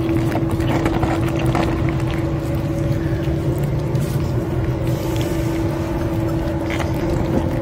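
A steady motor drone with a constant hum. Over it come a few faint clicks of cats eating from a metal dish.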